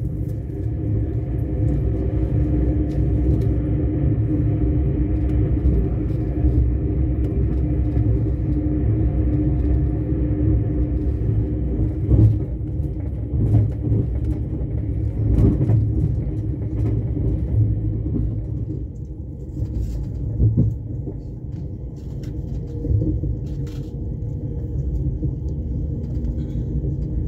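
Steady low rumble of a passenger train in motion, heard from inside the carriage, with a hum of several steady tones. The higher part of the hum fades about two-thirds of the way through, and there are occasional short clicks and knocks.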